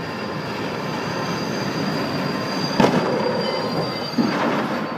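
Diesel locomotive running through a level crossing with a high steady squeal of its wheels. About three seconds in comes a loud crash as it strikes a coach bus, and a second, smaller impact about a second later.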